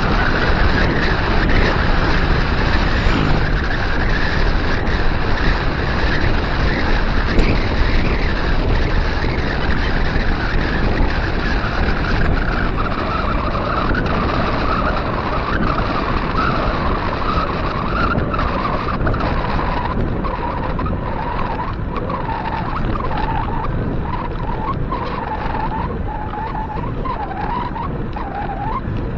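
Wind rushing over an action-camera microphone on a moving bicycle, with the hum of wide 700x45c tyres on pavement. A wavering whine drifts lower and the noise eases as the bike slows.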